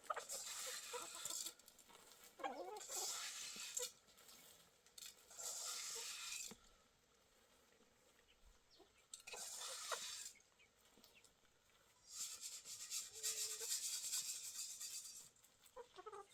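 Chickens clucking in a farmyard, between repeated bursts of rustling or hissing noise, each one to three seconds long.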